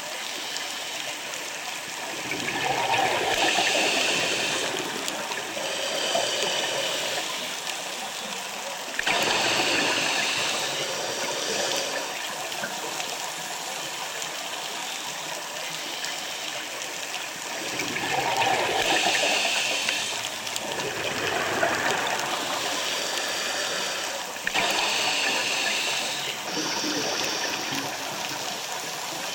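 Scuba diver breathing underwater through a regulator: a hissing, bubbling surge every seven or eight seconds, four breath cycles in all, over a steady underwater rush.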